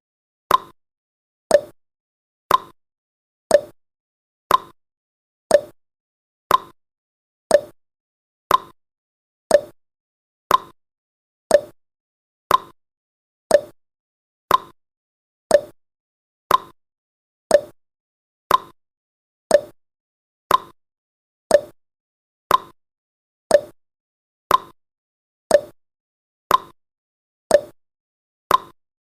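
Countdown timer's clock-tick sound effect: one short, sharp tick every second, alternating between a lower and a higher click like a tick-tock.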